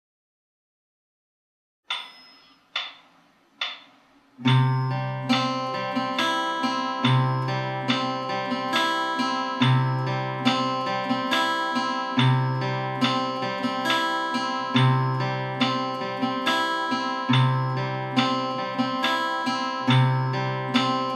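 Acoustic guitar fingerpicked in a triple-time broken-chord pattern: a deep bass note opens each bar about every two and a half seconds, followed by a run of lighter picked treble notes. The playing starts about four seconds in, after a silence and three soft taps.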